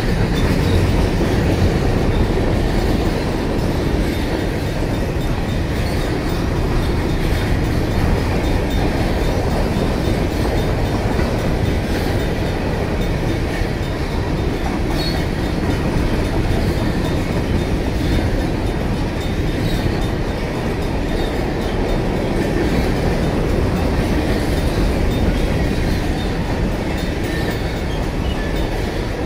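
Covered hopper cars of a freight grain train rolling past close by: a steady, loud rumble of steel wheels with clickety-clack over the rail joints. The grade crossing's Safetran mechanical bell keeps ringing faintly through it.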